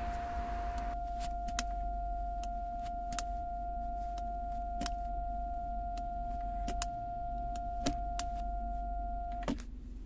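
Gear selector lever of a BMW X3 G08 fitted with a crystal shift knob, clicking every second or so as it is pushed through the gears. A steady high tone runs under the clicks and cuts off with a click near the end.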